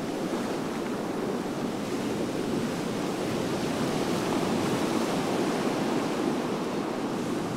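Surf breaking and washing up a sandy beach: a steady rush of waves.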